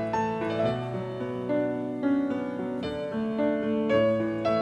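Background piano music, a melody of changing notes over held chords.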